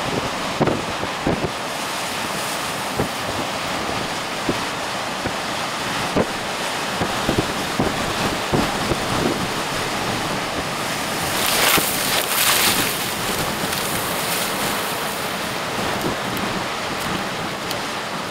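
Storm-force wind gusting and buffeting the microphone over the steady noise of breaking surf, with one stronger, hissier gust about twelve seconds in.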